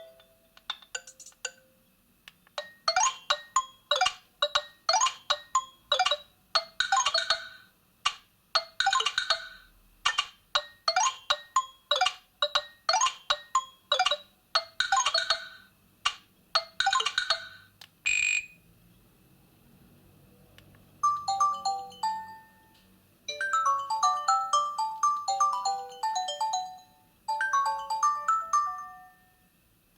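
Nokia 6300 4G phone's loudspeaker playing ringtones one after another. A repeating pattern of short, bright, chiming notes runs for about fifteen seconds, then comes a single short tone. After a brief pause a different tune of quick stepping notes plays.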